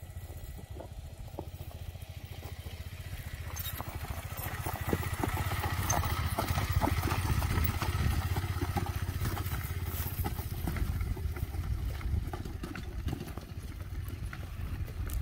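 KTM 390 Adventure's single-cylinder engine running at low speed on a steep slope, growing louder about four seconds in as the bike comes close, then easing off as it moves away. Scattered crackles sound over the engine.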